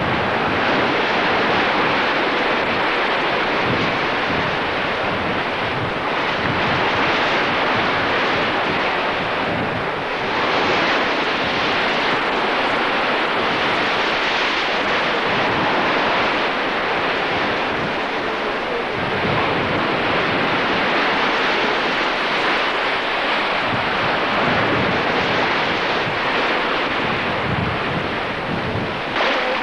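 Sea surf washing onto a beach in a steady rushing wash, with wind buffeting the microphone in irregular gusts.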